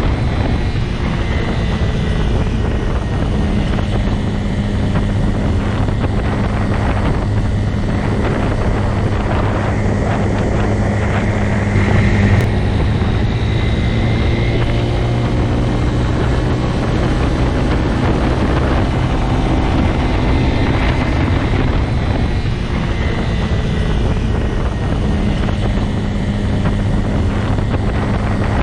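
Motorcycle engine running at a steady speed, a continuous low drone that swells briefly about twelve seconds in.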